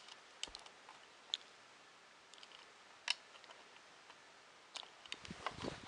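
Scattered small clicks and taps from hands handling small 3D printer parts, with a denser patch of handling noise near the end.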